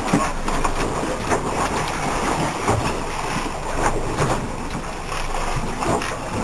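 Wind buffeting the microphone over the wash of sea water around a boat, an uneven rushing noise with gusts.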